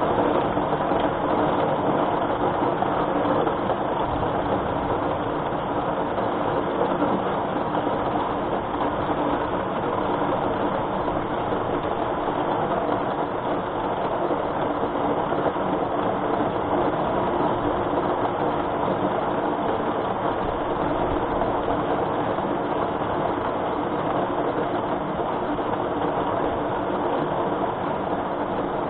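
Steady rain falling, an even rushing hiss with no thunderclaps.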